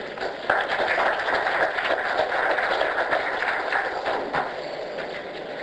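Audience applauding, starting about half a second in and dying away after about four seconds.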